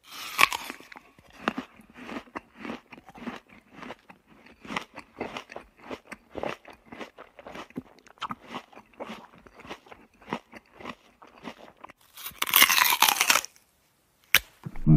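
Chewing and crunching eating sound effect: rapid, irregular bites and munches. It ends with a louder, longer noisy burst about twelve seconds in.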